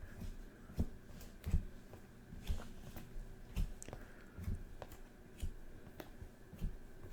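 Trading cards being sorted by hand and laid down on a table: faint, irregular soft taps and slides, about one a second.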